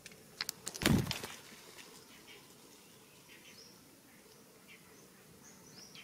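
A quick run of sharp clicks and then one loud knock about a second in. After that come a few faint, short, high bird chirps.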